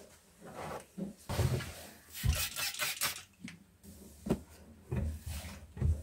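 Folded clothes rustling as they are lifted off a wardrobe shelf, followed by a few short, soft knocks against the shelf in the second half.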